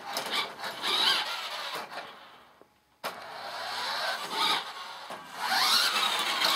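Electric motor and gears of a toy remote-control monster truck whining, rising and falling in pitch as it speeds up and slows. It dies away to nearly nothing about two and a half seconds in, starts again abruptly at about three seconds, and winds up again near the end.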